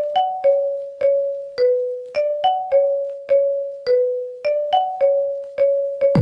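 Phone ringtone: a simple looping melody of single bell-like mallet notes, each struck and dying away, about two a second over a few alternating pitches.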